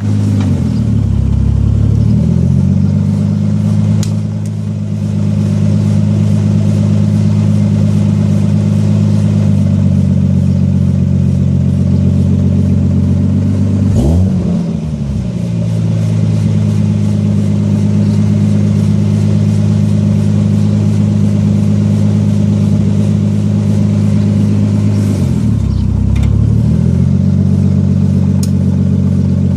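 An engine running at a steady speed, its pitch sagging and recovering three times, roughly every twelve seconds.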